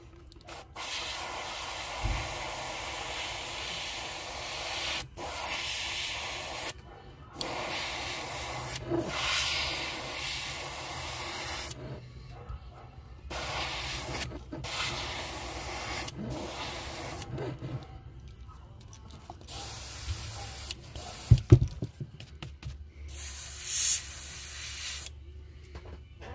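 Airbrush spraying paint in a series of on-off bursts of hiss, a second or two each with short breaks between, as the trigger is pressed and released. A couple of sharp knocks sound about three-quarters of the way through.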